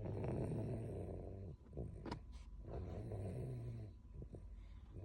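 A sleeping toddler snoring: a low-pitched snore drawn out over each breath, with a short pause about a second and a half in.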